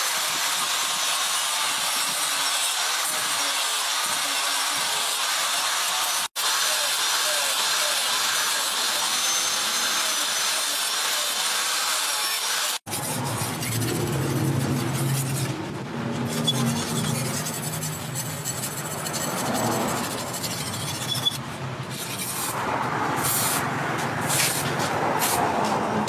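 Electric angle grinder with a sanding disc running against a steel knife blade, a steady high hiss, cut off abruptly twice. After the second break, about halfway through, a different, uneven rubbing sound. Near the end come short hissing bursts of an aerosol spray.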